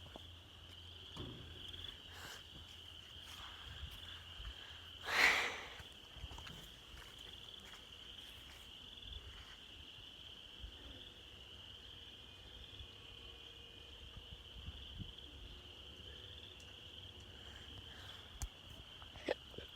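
Insects trilling in a steady, high-pitched chorus, with one brief loud noise about five seconds in.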